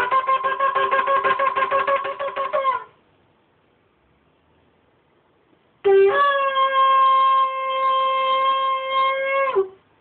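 Shofar (ram's-horn trumpet) blasts: first a run of rapid short notes for nearly three seconds that sags in pitch as it ends, then, after a pause, one long held blast that starts on a low note, jumps up, holds steady and drops briefly at the cut-off.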